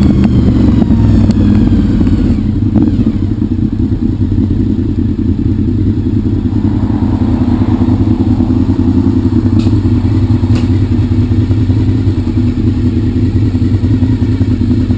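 Honda VFR750's V4 engine dropping in pitch over the first few seconds as the motorcycle slows, then idling steadily.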